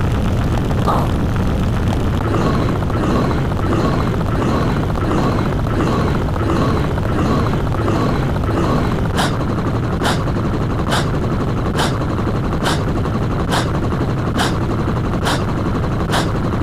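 Sound-effect track: a loud, steady rumble of booms. From about halfway, sharp gunshot-like bangs join in, repeating a little more than once a second.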